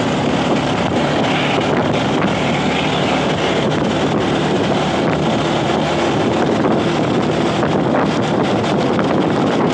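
Steady wind noise buffeting the microphone of a moving vehicle at road speed, with an engine's hum underneath.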